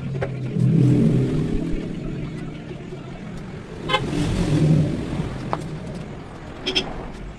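Motor vehicles passing on a nearby road: two swells of engine noise, about a second in and again around four to five seconds, with a few short sharp sounds between them.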